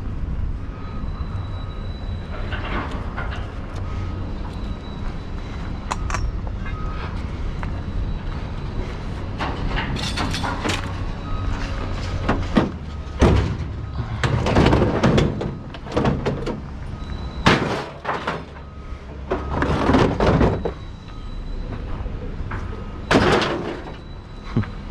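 Clattering and thuds of curbside scrap being handled and loaded, with a run of loud clanks in the second half over a steady low rumble.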